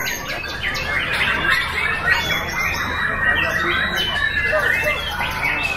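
Several caged white-rumped shamas singing at once in a song contest: a dense, overlapping chorus of whistles and chattering phrases with no break.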